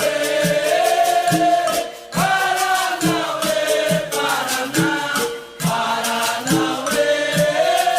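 Capoeira roda music: several voices singing a chorus in long held, bending phrases over a steady percussion beat.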